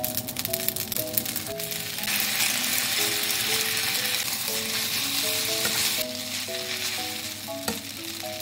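Spaghetti sizzling as it is stir-fried in a frying pan, with light clicks of a wooden spatula against the pan in the first two seconds. The sizzle grows louder about two seconds in and eases off about six seconds in.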